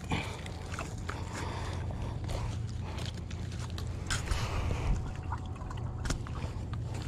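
Water lapping and trickling at the shoreline, with many small irregular splashes and clicks over a steady low rumble.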